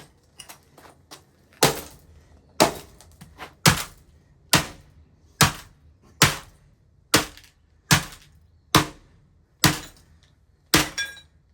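Laptop being smashed: about eleven hard blows in a steady rhythm, roughly one a second, each a sharp crack with a brief rattle of broken plastic and metal parts, the last two coming close together near the end.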